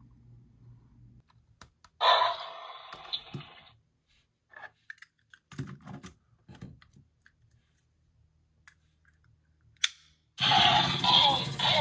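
Toy packaging and plastic parts being handled: scattered light clicks and taps, a loud burst of handling noise about two seconds in that lasts over a second, and loud continuous handling noise starting near the end.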